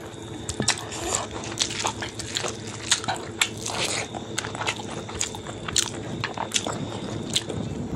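Close-up mouth sounds of eating rice and pork curry by hand: chewing with many quick, irregular wet clicks and smacks.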